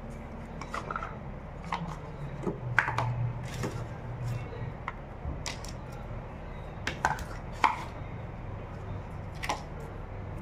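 Unboxing handling of a Google Pixel 6a's cardboard box and paper packaging: irregular light clicks, taps and knocks as the phone, the inner tray and the coiled USB-C cable are taken out. A steady low hum runs underneath.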